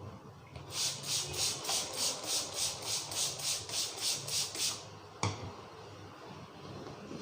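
A barber's hands rubbing briskly during a head massage: about fourteen quick, even strokes over four seconds, then a single sharp crack.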